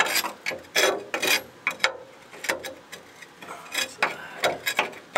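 Metal hand tool scraping and prying rotted wood and rust flakes off a steel boat's rusted locker floor, in irregular scrapes and cracks, a few each second.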